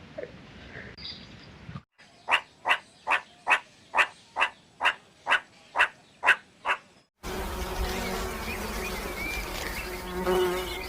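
Insect chirping: about a dozen short, evenly spaced chirps, two to three a second. It cuts off suddenly and a steady hiss of background sound follows.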